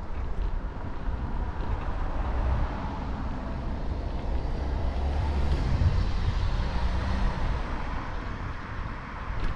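Steady low rumble of wind and road noise on a moving action camera. A car passes, its noise swelling around the middle and then easing off.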